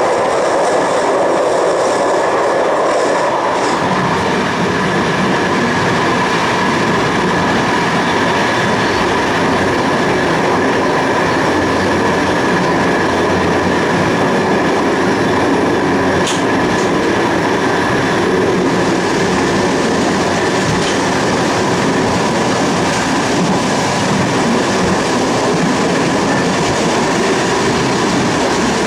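CP passenger train running at speed on a winding track, heard from on board: a steady loud rumble of wheels on rail with a constant high-pitched tone over it. The low rumble gets heavier about four seconds in, and there is a single short click about sixteen seconds in.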